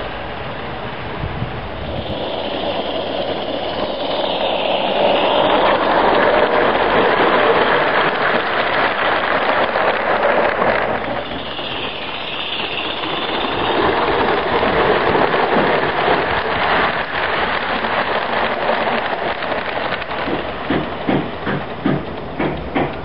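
Accucraft C-16 live steam garden-railway locomotive running with its freight train: a steady hiss-like noise that swells louder twice, then wheels clicking regularly over rail joints near the end.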